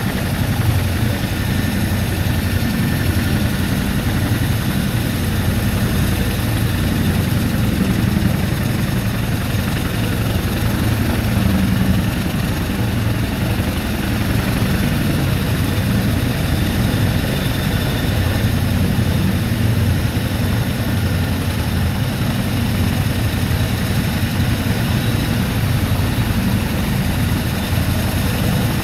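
Boeing CH-47 Chinook tandem-rotor helicopter running on the ground with its rotors turning, a steady low rotor and engine sound.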